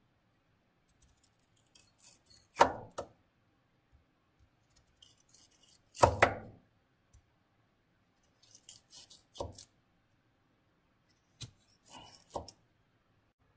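Chef's knife slowly cutting through a bunch of raw carrot strips on a plastic cutting board. Each stroke has a crisp crunch through the carrot and ends in a knock of the blade on the board. There are a few separate strokes a few seconds apart, the loudest about six seconds in. The carrot is tough to cut because too many strips are cut at once.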